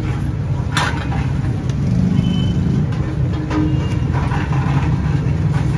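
Steady low mechanical rumble, with a sharp click about a second in.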